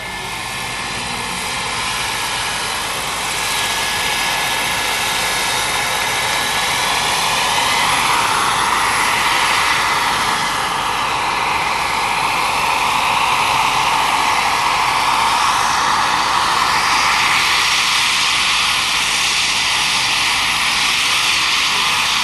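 Turbine-powered Bell 412 scale model helicopter in flight, its turbine and rotor making a steady jet-like hiss and whine. It grows louder over the first several seconds as the helicopter comes in low, then holds, with slow sweeping shifts in tone as it moves.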